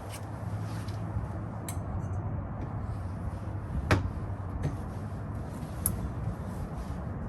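Scattered sharp clicks and light knocks of hand tools and trim parts being worked on a car door, the sharpest about four seconds in, over a steady low hum.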